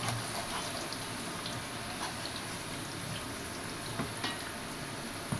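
Hot oil sizzling steadily as cut potato chips fry, with a few light clicks as more raw chips are dropped into the pan.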